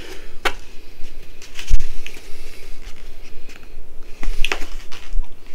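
A takeout container of barbecue wings being handled close to the microphone: scattered clicks and rustles, with a dull thump a little under two seconds in.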